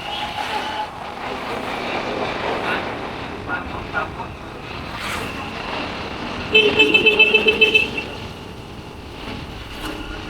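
Street traffic noise, with a vehicle horn sounding a rapid string of about ten short beeps over a second and a half, a little past the middle.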